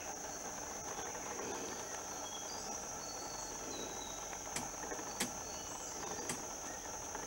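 Steady high-pitched drone of insects in the forest, with a few faint short chirps and three sharp clicks in the second half.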